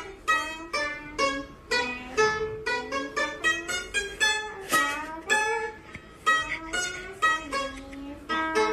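A round-bodied Chinese lute plucked in a melody, single notes a few times a second, each ringing briefly and dying away.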